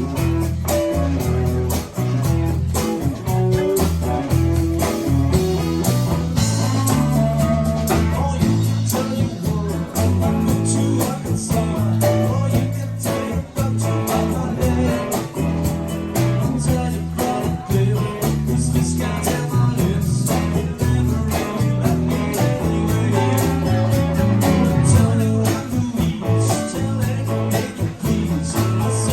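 Guitar-led music with a moving bass line and a steady beat, in a blues or rock style.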